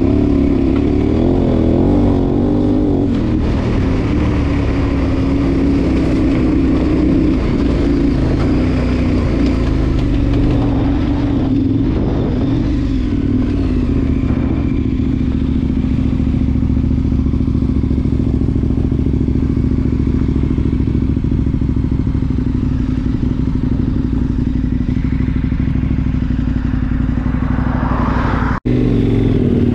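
Twin-cylinder adventure motorcycle engine running under way, heard from the bike-mounted camera with wind noise, pitch rising and falling with the throttle in the first few seconds, then steady. Tyres and loose stones clatter on the gravel. A brief sudden dropout comes about a second before the end.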